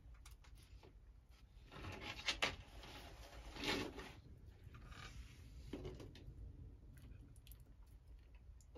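Green iguanas shifting on a wooden shelf: a few short rubbing, scraping sounds of claws and scaly bodies on the boards, the loudest about two and a half and four seconds in.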